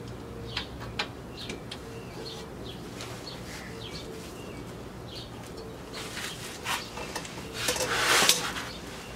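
Hand tools at work on a car's rear brake caliper: scattered light clicks and clinks of a socket being fitted to the caliper bolts, with a louder noisy rustle about eight seconds in.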